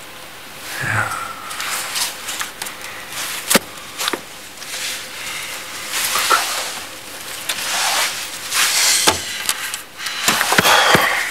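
Rustling and handling noise with a few sharp clicks and taps scattered through, and a brief voice-like sound about a second in.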